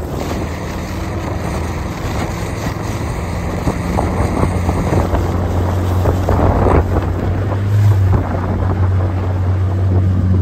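A small outboard motor on a dinghy running steadily under way, a low hum that grows stronger about four seconds in, with wind buffeting the microphone.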